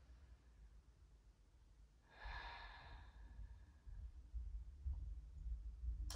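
A woman breathing out once in a soft, sighing exhalation of about a second, about two seconds in, over a faint low rumble.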